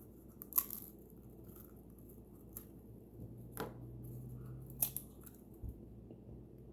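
Popcorn being eaten: a few faint, crisp crunches a second or so apart.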